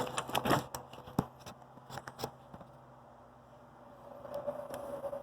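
Handling noise as a phone is set up to film: scattered light clicks and knocks for the first couple of seconds, then a faint steady hum near the end.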